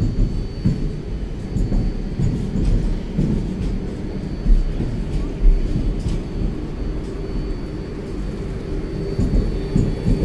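A train running past on the tracks: a heavy low rumble with irregular thuds, a faint steady high whine, and a low hum that steadies near the end.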